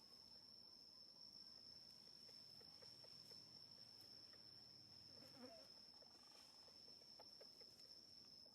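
Near silence: a faint steady high-pitched whine throughout, with scattered faint short chirps and squeaks.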